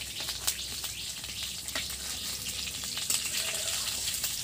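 Brinjal (eggplant) slices frying in hot oil in a kadai: a steady sizzle and crackle, with a few sharp clicks as a metal spatula turns the slices against the pan.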